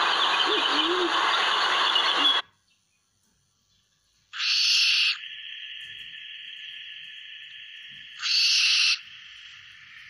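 Band-tailed pigeon giving low two-part coos over rushing water, cut off after about two seconds. After a pause, a barn owl's harsh screech, a steady hiss, and a second screech about four seconds later.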